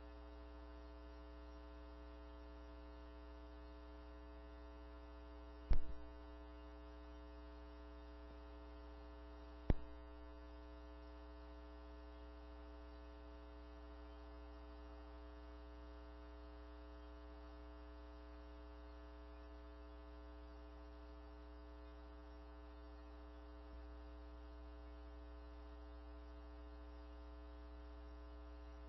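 Steady electrical mains hum, broken by two sharp clicks about six and ten seconds in.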